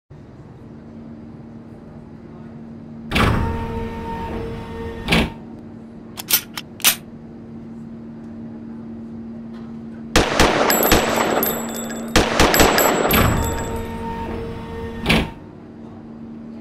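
Gunfire sound effects over a steady low hum: a loud shot about three seconds in and another near five seconds, a few short sharp clicks around six to seven seconds, then rapid automatic-fire bursts from about ten to thirteen seconds and a final shot near fifteen seconds.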